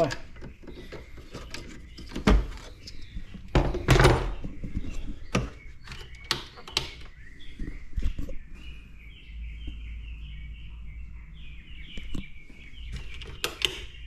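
Scattered knocks and clunks of things being handled, the loudest about four seconds in. A faint, fast high chirping runs through the last five seconds.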